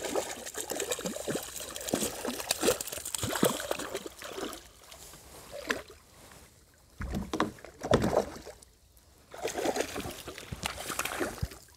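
Irregular clicks, knocks and water splashes at a plastic kayak while a hooked palometa is handled beside the boat, with a louder low thump about eight seconds in.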